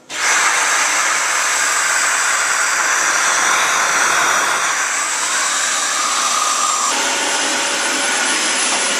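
Dyson DC40 Animal upright bagless vacuum cleaner switched on: the motor starts with a sudden jump in loudness just after the start, then runs steadily with a loud, even whoosh. Around seven seconds in its tone shifts slightly.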